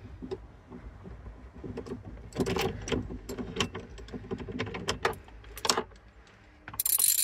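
Metal hand tools clicking and clattering as a spline socket and ratchet work the steering wheel's M12 centre bolt loose: irregular sharp clicks through the middle, then a short, quick rattle near the end.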